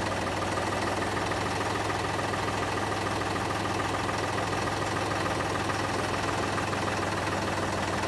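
Tractor engine running steadily while its front loader arm lifts a heavy load on straps.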